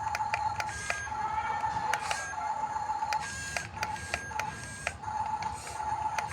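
Electric drive motors of an RC bulldozer whining in spurts, cutting out and starting again several times, with sharp clicks and rattles from its gears and tracks.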